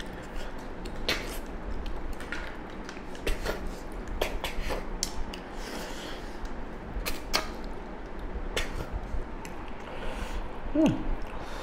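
Close-up eating sounds from two people eating by hand: sharp sucking and smacking clicks as water snails are sucked from their shells, and fingers working through curry on steel plates. A short falling sound comes near the end.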